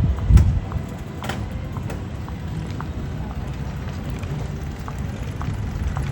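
Footsteps on pavement, light clicks about two a second, over a steady low rumble of city street noise.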